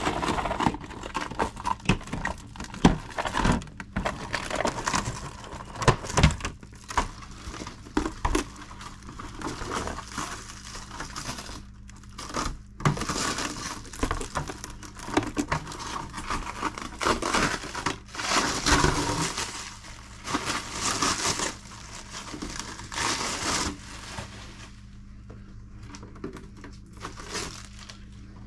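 Clear cellophane wrap on an RC truck's plastic body shell crinkling and tearing in irregular bursts as it is handled and peeled, dying down to quieter handling a few seconds before the end.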